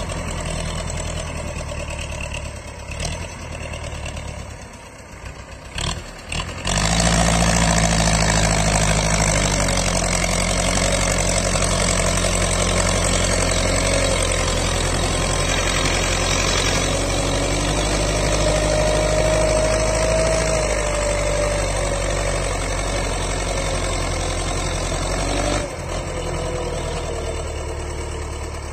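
Belarus tractor's diesel engine running at low revs, then about six and a half seconds in opened up to full power and held there, labouring as it hauls a loaded sand trailer up a slope, before dropping back near the end.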